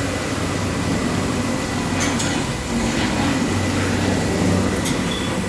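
Industrial carpet-cleaning machine running steadily with a low hum and a spread of mechanical noise, with a couple of brief clicks.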